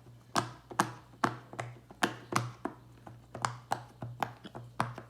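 Bubbles of a heart-shaped silicone pop-it fidget toy being pushed through one after another: a quick series of sharp pops, about three a second, some louder than others.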